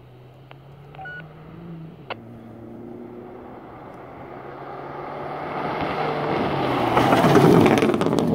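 2017 Subaru WRX STI rally car's turbocharged flat-four engine approaching at speed on a gravel stage, growing steadily louder. In the last couple of seconds, loud gravel spray and tyre noise join the engine as the car slides past close by.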